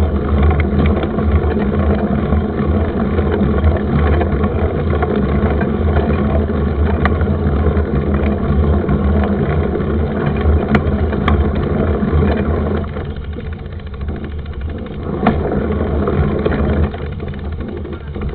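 Steady rumbling noise of a mountain bike being ridden, with wind on the microphone and tyres on the trail, and a few scattered rattling clicks. It gets quieter about 13 seconds in.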